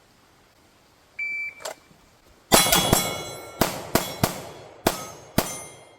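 Shot timer start beep, then about a second later a rapid string of handgun shots, roughly eight in three quick groups, with hits ringing off steel targets.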